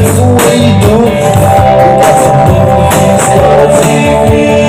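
A song with a singing voice and guitar, played loud with strong bass.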